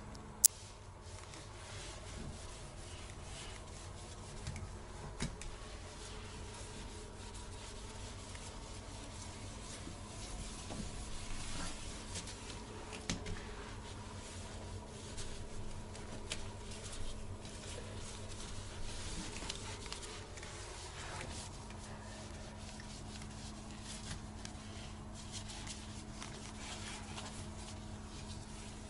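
Cloth wiping the outside of a ceramic toilet bowl: soft, faint rubbing strokes that come and go. There is a single sharp click about half a second in, and a steady low hum underneath.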